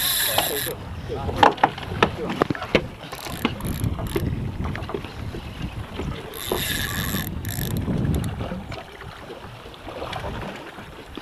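Wind buffeting the microphone over the steady wash and rumble of sea water around a small boat, with two louder gusts at the start and about six and a half seconds in. A few sharp knocks and clicks come in the first few seconds.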